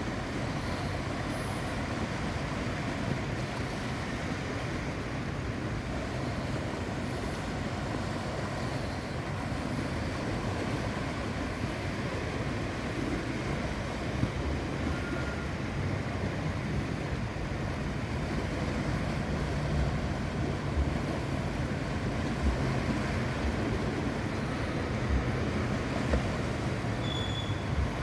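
Sea surf rushing steadily onto the shore, with wind buffeting the microphone in short low thumps, more often in the second half.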